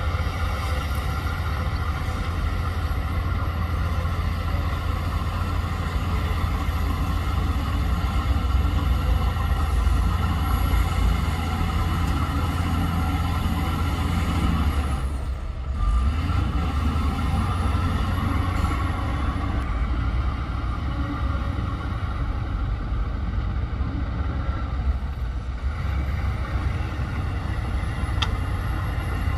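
Diesel engine of heavy earthmoving machinery running steadily, with a strong low hum and a brief drop in sound about halfway through.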